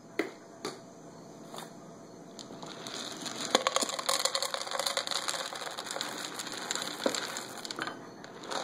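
Cat crunching dry kibble from a bowl: a few separate clicks, then a dense run of fine crunching and crackling from about two and a half seconds in.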